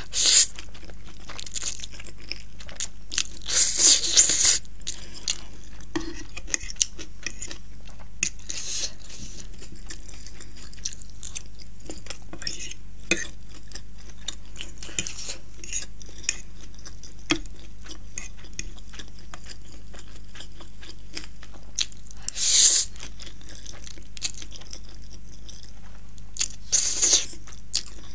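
Close-up mukbang eating sounds of spicy instant ramen noodles: loud noodle slurps about five times, at the start, around four and nine seconds in, and twice near the end, with wet chewing and small clicks between them.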